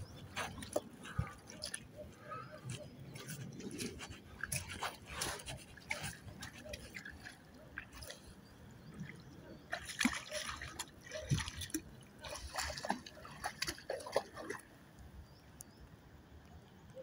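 Irregular splashing and sloshing of lake water as a dog wades in, dying down over the last couple of seconds.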